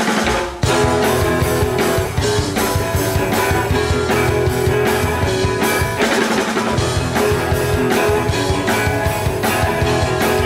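Live rock band playing the instrumental opening of a song: electric guitars over a drum kit, with no singing.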